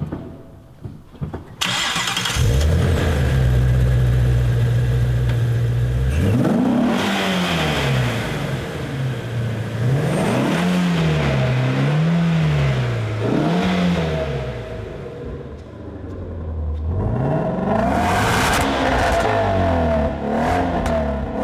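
Ford Shelby GT350's 5.2-litre flat-plane-crank V8 starting up, then idling steadily for a few seconds before being revved again and again, its pitch rising and falling with each blip. The engine settles briefly past the middle, then revs again near the end.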